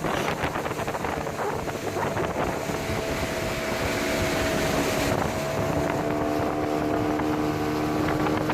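A small boat's motor running underway with a steady engine note over wind and water noise, its note shifting lower about five seconds in. The boat is being run to drain rainwater out of the hull.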